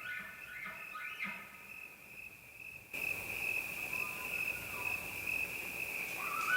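Insects, likely crickets, trilling in one steady high tone. In the first second the tail of a bull elk's bugle glides up and down, and near the end another bugle starts, rising in pitch.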